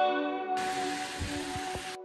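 Guitar background music, joined about half a second in by the sizzle of sliced bell peppers and onions sautéing in a frying pan, with a few low knocks of the wooden spatula. The sizzle cuts off sharply just before the end.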